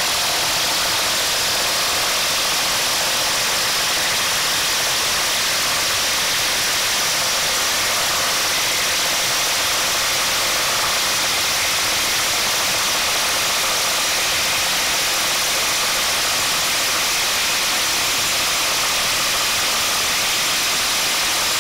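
A Ridgid Octane 18-volt brushless impact driver and a Hitachi/Metabo triple hammer impact driver hammering at once. They are driving half-inch lag screws into a wooden 4x4 with no pilot holes, making a loud, steady noise.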